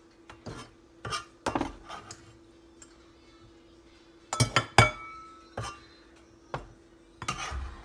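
A broad-bladed knife scraping and knocking on a plastic cutting board and clinking against a ceramic bowl as chopped chicken is scooped into it. Scattered knocks and clinks, the loudest cluster about four and a half seconds in.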